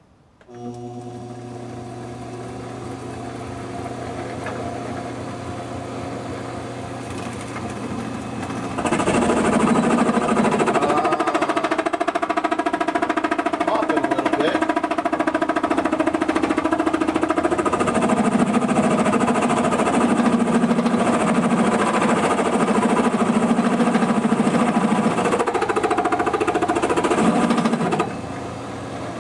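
Milling machine spindle motor starting up and running with a steady hum. About nine seconds in, a carbide-insert cutter begins cutting cast iron, a much louder steady machining noise that eases back to the motor hum near the end.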